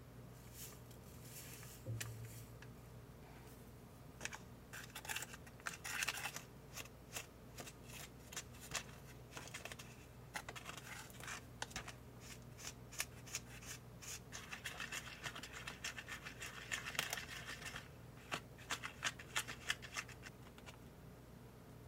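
A small plastic spoon stirring and scraping a powder-and-water batter in a plastic candy-kit tray: quick, irregular scrapes and clicks against the tray. There is a soft bump about two seconds in.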